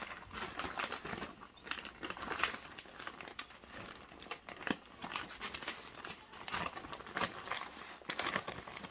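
Clear plastic sleeves and a plastic folder crinkling and rustling in irregular crackles as they are pushed and shuffled into a backpack.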